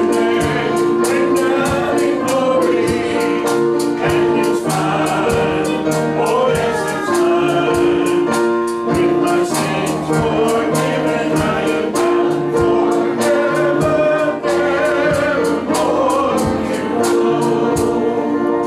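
A group of voices singing a gospel hymn together, backed by instruments with a steady beat.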